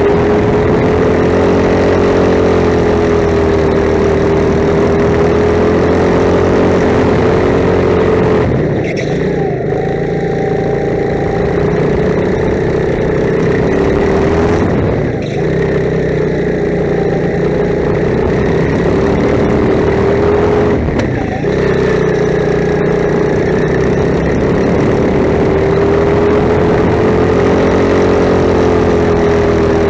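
Rental go-kart engine running hard under the driver, its pitch rising and falling as the throttle works through the corners, with three short lifts off the throttle about six seconds apart.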